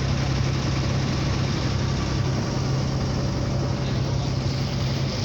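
Boat engine running steadily, a constant low hum under an even hiss.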